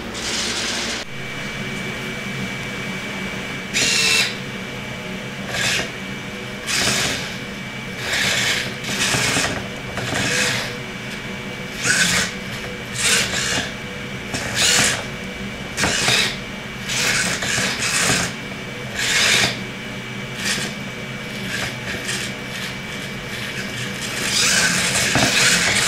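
The motors of a small three-armed DIY delta robot whirring in short, irregular bursts, roughly one a second, as the arms jerk to follow a moving hand, with a longer, louder stretch near the end. A faint steady high tone runs through the first half.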